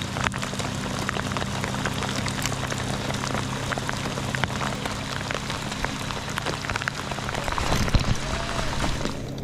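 Heavy rain falling, a dense hiss with many individual drops ticking, with a steady low hum underneath that fades out about three-quarters of the way through.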